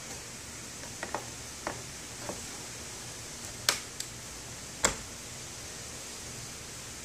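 Wire cutters snipping the leads of a soldered-on cartridge fuse in an EV charger: a few light clicks of handling, then two sharp snips about a second apart.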